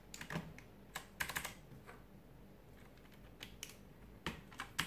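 Clicky blue switches on an Aula KB890 mechanical keyboard being pressed in short, scattered runs of keystrokes, each a sharp click.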